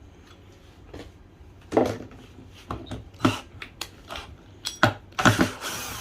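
Irregular clicks and knocks of hard objects being handled during repair work. A louder, rougher stretch of clattering noise sets in near the end.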